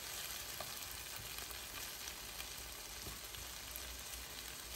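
Cubed potatoes, carrots and shallots sautéing in oil in a frying pan: a faint, steady sizzle, with a wooden spoon stirring through them and a couple of light ticks.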